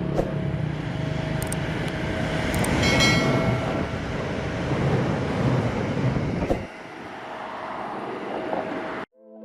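Train running on the rails: a steady noisy rumble, with a brief high squeal about three seconds in. The low rumble drops away about two-thirds of the way through, and the sound cuts off abruptly near the end.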